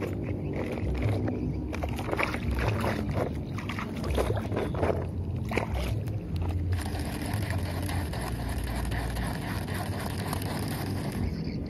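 Wind buffeting an outdoor microphone as a low, steady rumble, with rustling and knocks from the camera being handled during roughly the first half, then a steadier hiss.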